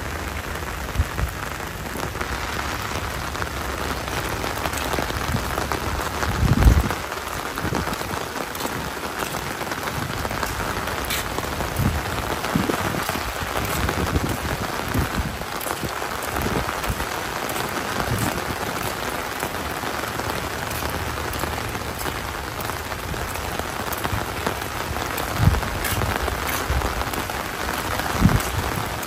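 Heavy rain falling steadily, with a few short low thumps, the loudest about seven seconds in.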